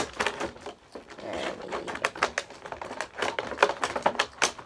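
Cutting into a toy's cardboard-and-plastic packaging: an irregular run of sharp snips and clicks.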